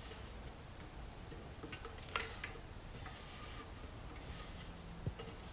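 Quiet kitchen handling: a spatula scraping waffle batter out of a mixing bowl, with a sharp click about two seconds in and a light tap near the end.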